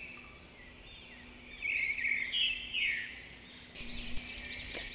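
Small birds chirping and twittering in quick, repeated short notes, over a faint steady low hum.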